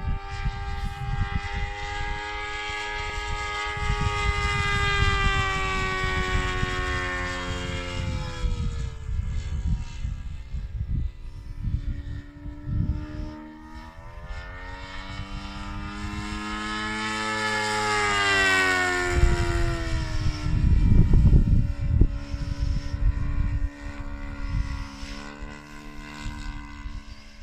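Radio-controlled aerobatic model plane in flight, its O.S. FS-155 Alpha single-cylinder four-stroke glow engine running with its original, louder propeller. The engine note rises and falls in pitch twice as the plane passes and the throttle changes, over bursts of low rumble that are loudest about three-quarters of the way through.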